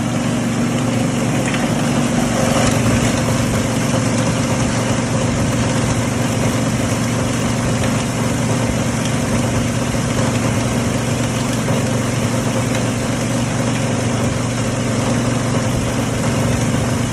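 Ball & Jewel 25 hp open-rotor three-blade granulator running steadily, its motor and rotor giving a loud, even hum with a noisy grinding wash over it; it swells briefly about two to three seconds in.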